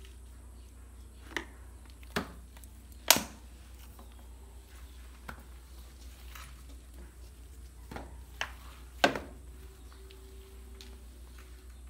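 A swivel-head flat mop knocking and clacking against its plastic wringer bucket and the tiled floor, about six sharp knocks, the loudest near 3 and 9 seconds. Quiet swishing of the mop pad on tile runs between them.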